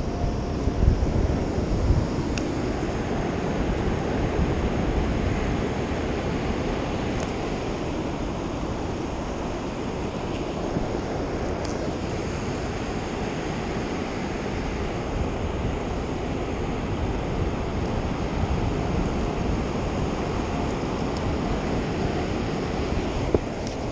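Ocean surf breaking and washing up a sandy beach, a steady rushing noise, with wind buffeting the microphone in gusts during the first couple of seconds.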